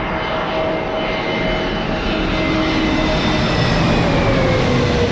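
Jet airliner's engines passing close, a loud steady rush with a whine whose pitch slides down over the last couple of seconds.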